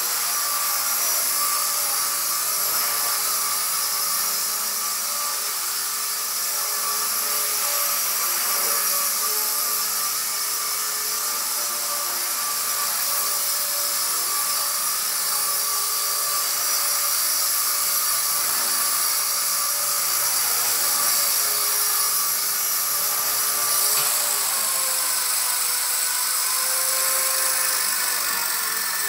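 Walkera V120D02S micro RC helicopter, fitted with an upgraded ESC, flying: a steady high whine of motor and rotor. About five seconds before the end the pitch falls as the helicopter lands and the rotor spins down.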